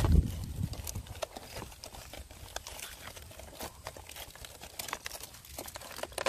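Dry seeds being rubbed and picked loose by hand from a dried Russian Mammoth sunflower head: an irregular crackling and clicking as the seeds break free and drop into a plastic tub. There is a low bump at the very start.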